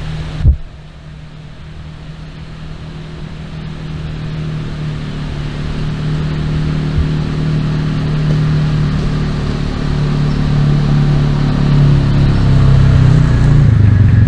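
A vehicle engine running and growing louder, with a sharp knock about half a second in.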